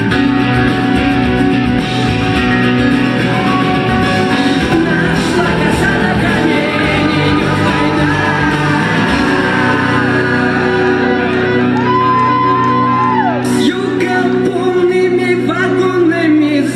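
A song played by a band, with wordless sung lines and shouts over the instruments.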